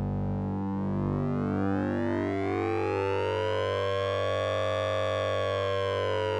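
Synthesizer sound effect built on oscillator sync and ring modulation: a steady buzzy drone whose upper overtones dip early on, then sweep slowly up to their brightest about five seconds in and fall back, like a slow siren.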